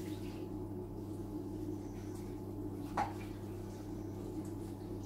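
Stock being poured from a glass jug into a slow cooker, faint under a steady low hum, with one sharp clink about three seconds in.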